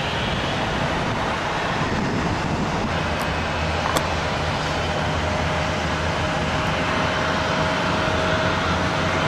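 Steady vehicle roar with a low hum underneath and a faint whine slowly rising in pitch through the second half.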